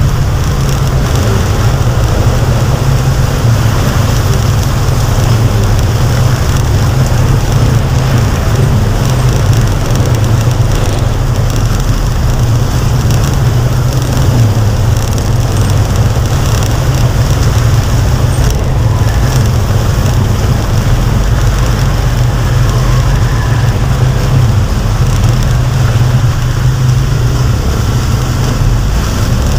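Steady low rumble of road traffic under the even hiss of a heavy downpour.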